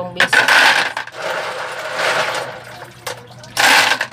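A mass of small bagongon sea-snail shells being rubbed and stirred by hand in a plastic basin of water, the shells clattering and swishing as they are washed. It comes in three loud bursts, near the start, about two seconds in, and near the end.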